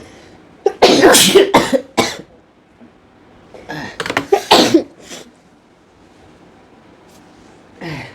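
A person coughing and sneezing in fits, set off by sneezing powder. Several sharp outbursts come in quick succession about a second in, another cluster around four seconds in, and a short one near the end.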